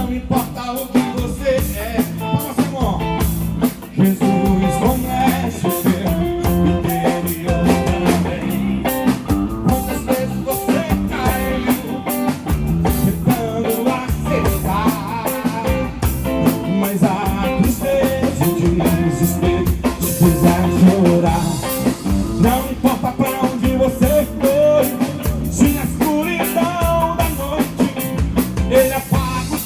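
Live gospel band playing with drum kit, bass and electric guitar, a steady full-band passage of the song.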